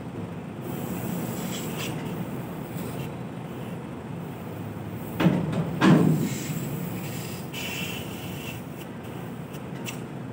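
Semi-trailer landing gear being cranked up, with two loud metal clunks about five and six seconds in and a few lighter clicks. Behind it, the coupled truck runs with a steady low hum.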